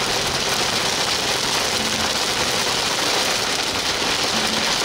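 Heavy thunderstorm rain hitting a car, a dense, steady hiss.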